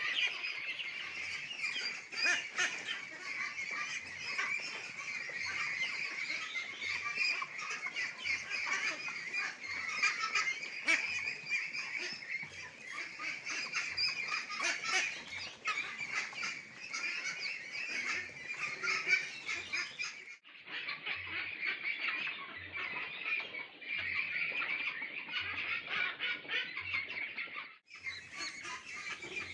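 A flock of month-old hybrid ducklings calling together: a dense, unbroken chorus of high-pitched peeps, many overlapping, with no pause between them.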